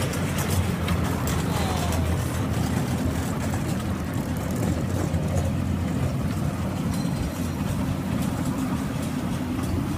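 Steady low rumble of a kiddie train ride running round its track.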